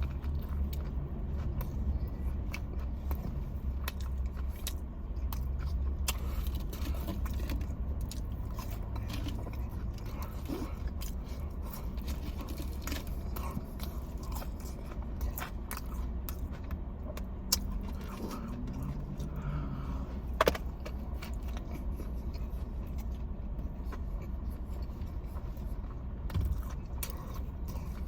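Close-up eating sounds of hot fried chicken: biting, chewing and the handling of food and wrappers, with small scattered clicks and scrapes over a steady low hum of a car cabin. Two sharper clicks stand out, one about two-thirds of the way in and another a few seconds later.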